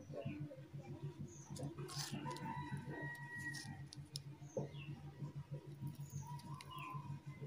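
Quiet workbench sound while wires are soldered onto a light-string controller board: a faint steady low hum, a few short high chirps, and soft clicks of handling.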